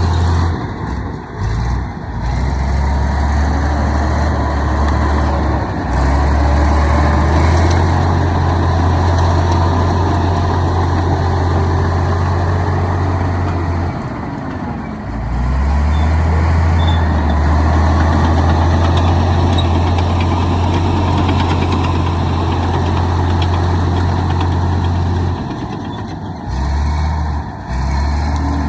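Komatsu D65E bulldozer's diesel engine running loud and steady, with the sound dropping briefly about a second in, around the middle, and again near the end.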